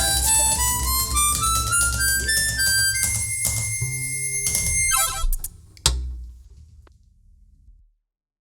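Closing bars of a rock band song: a blues harmonica plays a rising run over guitar, bass and drums, then holds a high note as the band stops. A final hit just before six seconds in rings out and fades away.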